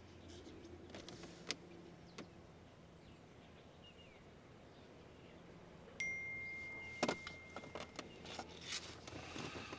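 A phone's text-message alert: a single clear electronic ding about six seconds in, held for about two seconds, followed by a string of light clicks.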